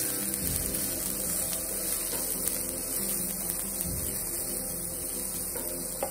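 Chopped shallots and garlic sautéing in oil in a non-stick pan: a steady sizzle over a constant low hum, with one short knock of the spatula against the pan just before the end.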